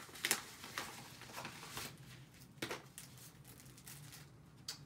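Mailer package rustling and crinkling as it is opened and its contents pulled out by hand, a few short, sharp crinkles at irregular moments.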